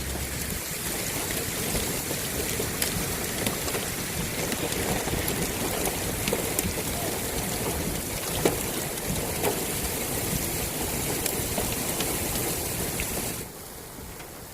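Steady rain falling, a dense even hiss with scattered individual drop clicks; the sound drops away sharply about a second before the end.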